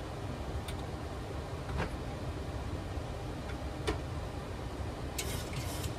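Steady flight-deck noise of a Boeing 737-800 in flight on approach: an even rush of airflow and air conditioning over a low rumble, with a few faint clicks.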